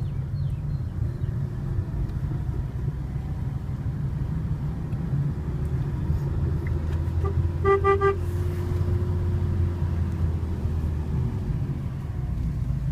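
Fiat Panda's engine running with road rumble as it drives down a steep, narrow lane. About eight seconds in, the car horn gives a quick run of about three short toots, a warning before a blind stretch of the one-lane road.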